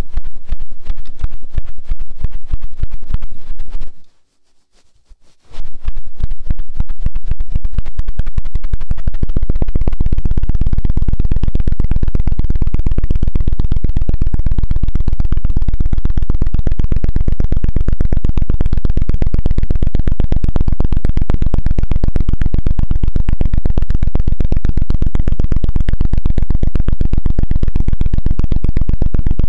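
Fast, rhythmic scratching on an ASMR microphone, many strokes a second, close and loud. It breaks off for about a second and a half about four seconds in, then resumes steadily.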